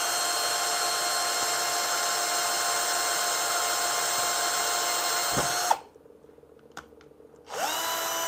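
Bosch 10.8 V cordless drill running at steady speed as it bores into an SLA resin 3D print, the resin cutting cleanly without cracking. The motor stops about five and a half seconds in, then spins up again with a rising whine near the end.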